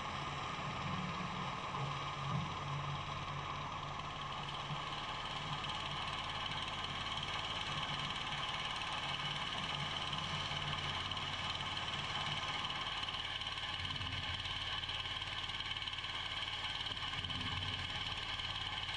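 Pressure washer running with a steady low hum from its motor and pump and a constant hiss of water spraying from the nozzle; the high hiss grows stronger about four seconds in.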